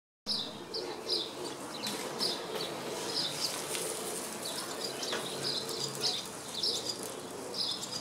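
Barn swallow twittering: a run of short, high chirps repeated about every half second.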